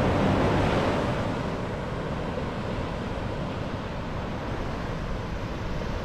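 Ocean surf washing steadily onto a beach.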